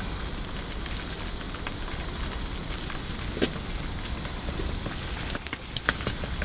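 An egg frying in a small pan on a camp stove, a steady sizzle with scattered crackles and pops, while chopsticks stir it into a rough scramble.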